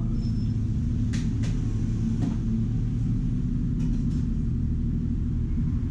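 Steady low background rumble with a low hum, and a few faint light clicks of a plastic spoon stirring soup in a paper bowl.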